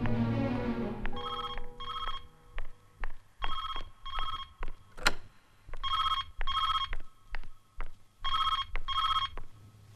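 Telephone ringing in a double-ring cadence: four pairs of short electronic rings, about two and a half seconds between pairs. Between the rings come sharp clicking footsteps on a hard floor. A music chord fades out in the first second.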